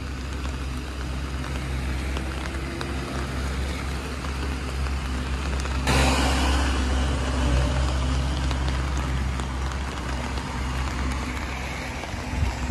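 Street traffic noise from the adjacent road, with a steady low engine hum underneath. The sound jumps louder and brighter about six seconds in.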